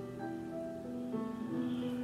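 Calm instrumental background music: a slow melody of held notes stepping from pitch to pitch.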